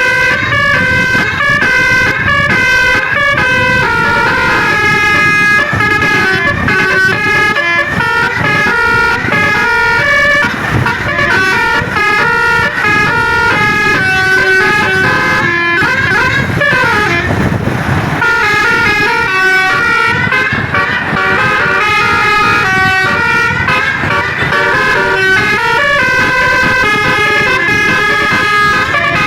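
Indonesian bus "telolet basuri" horns playing a melody of stepped, held tones that hop between pitches, loud and unbroken. About two-thirds of the way through the tune gives way to a swooping siren-like glide down and back up, then the stepped melody resumes.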